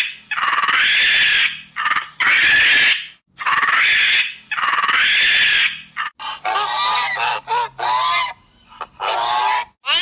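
Pygmy marmoset calls: a string of loud, high calls about a second long each, with short pauses between. From about six seconds in, emperor tamarin calls follow: shorter, quicker chirps that bend up and down in pitch.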